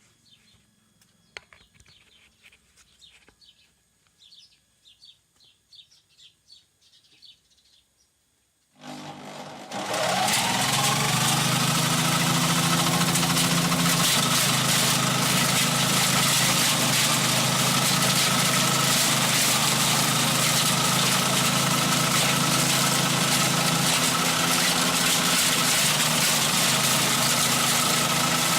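Faint bird chirps, then an engine starts about nine seconds in, its pitch rising briefly as it catches, and settles into a steady, loud run.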